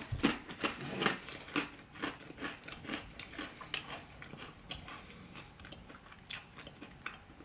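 A person chewing a hard, crunchy Flamin' Hot Rold Gold pretzel: irregular crunches, most frequent in the first three seconds and growing sparser toward the end.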